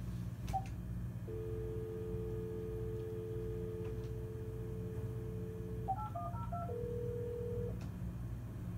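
Hotel room telephone: a steady dial tone for about four and a half seconds, then a quick run of keypad tones as a number is dialled, followed by about a second of ringing tone. A low steady hum runs underneath.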